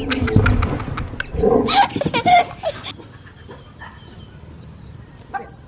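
A startled dog giving short cries that bend up and down, mixed with a few knocks, in the first three seconds, then only faint sounds.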